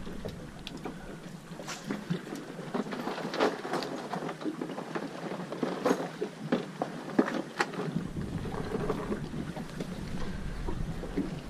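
Small boat at sea: wind on the microphone and water around the hull, with scattered irregular knocks and clicks. The low wind rumble drops out and comes back about eight seconds in.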